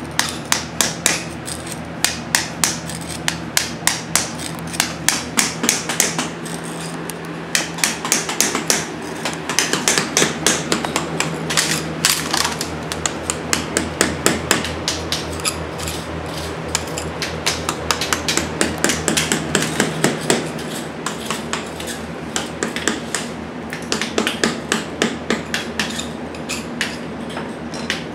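Hammer driving a chisel into mortar and stone at the base of a stone fireplace, chipping out what the undercut saw left: sharp metal-on-metal strikes about three a second, in runs with short pauses. A steady low hum runs underneath.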